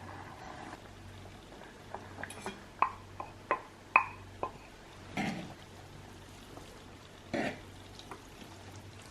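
Household objects being handled: a quick run of about eight light clinks and knocks, some with a short ring, then two brief scuffing sounds.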